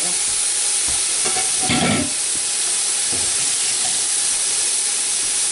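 Chuck roast searing in hot oil in an electric pressure cooker's pot on its sear setting: a steady sizzle.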